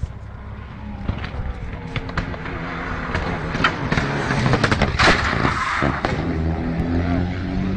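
Rally car engine running hard at speed, with clicks and a loud rush of noise about five seconds in.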